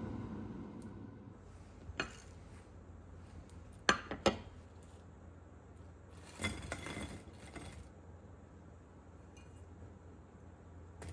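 Ceramic dishes and utensils clinking: single sharp knocks about two seconds in and a quick triple knock near four seconds, then a short clatter as fried rice-cake sticks are tipped from a bowl onto a china plate.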